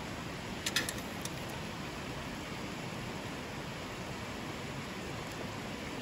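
A river running steadily over stones, with a few light clicks about a second in.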